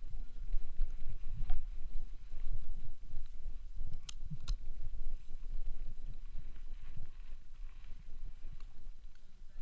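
Rubbing and bumping noise on a camera mounted on a French bulldog's harness: irregular low thumps and rustle as the dog lying in the grass shifts and breathes, with two sharp clicks about four seconds in.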